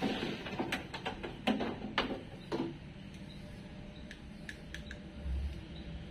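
Clicks and clacks of a car door lock assembly being worked loose from inside the door shell and handled, its metal and plastic parts knocking: a quick run of knocks in the first couple of seconds, then a few fainter ticks.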